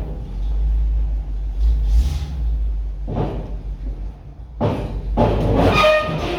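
Dump truck engine running with a steady low rumble, with louder rushing noise about three seconds in and again near the end, where a brief high squeal sounds.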